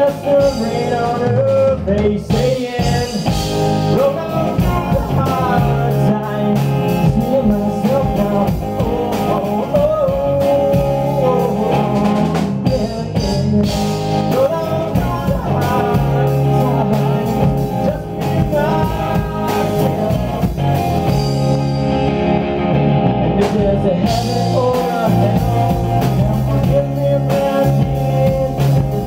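Live rock band playing: electric guitar, bass guitar and drum kit, with singing.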